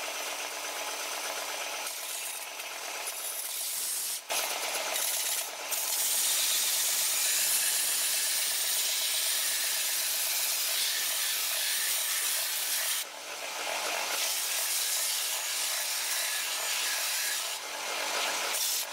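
Stand-mounted belt sander grinding an old steel cleaver blade pressed against the running belt: a steady abrasive hiss, broken briefly a few times as the blade comes off the belt. This is the grinding stage of the restoration, taking the rust and pitting off the blade.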